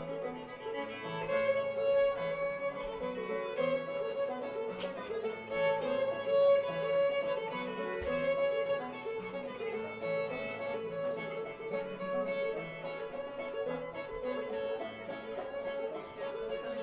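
Old-time string band playing live, a fiddle leading the tune, with one note held steadily beneath the melody.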